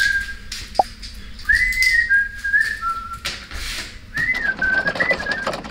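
A person whistling a tune in short phrases, a single wavering line of notes, with scattered clicks from work on a motorcycle's fairing.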